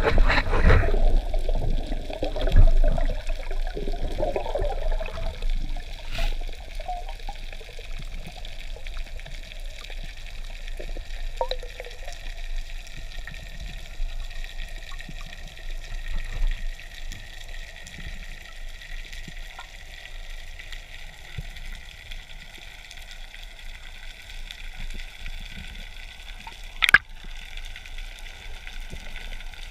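Underwater sound picked up by a camera in a waterproof housing during a dive: water rushing and bubbling against the housing for the first few seconds, then a steady, quieter underwater hiss. A single sharp click sounds near the end.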